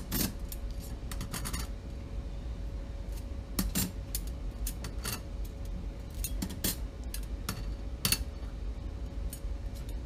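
Motorcycle clutch plates, aluminium friction plates and steel plates, clinking against each other as they are pulled apart and stacked by hand. Irregular light metallic clinks, about a dozen, over a faint steady hum.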